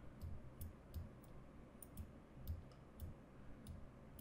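Faint computer mouse clicks, about ten of them at an uneven pace of two or three a second, each a sharp tick with a soft low thud.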